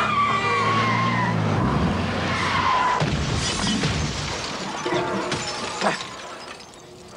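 Film soundtrack of a car scene: tyres squealing in wavering whines over music, with a sharp crash about six seconds in, after which the sound fades down.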